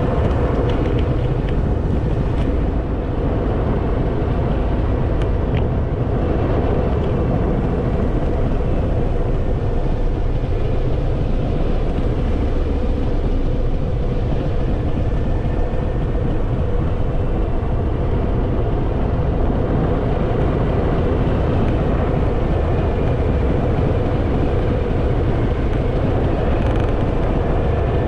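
Harley-Davidson Fat Boy's V-twin engine running steadily while riding, with wind noise on the microphone.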